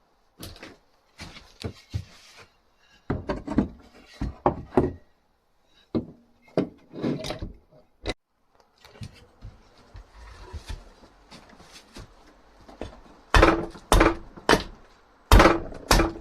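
Hand tools working a piece of dried wood for an axe handle: irregular knocks and strokes on the wood, then a run of loud knocks about two a second near the end.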